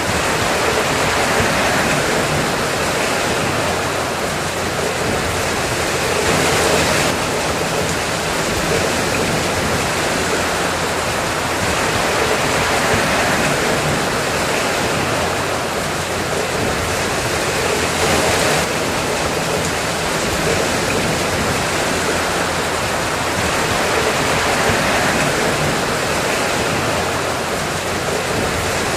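Steady, even rain noise with no separate drops or thunder standing out.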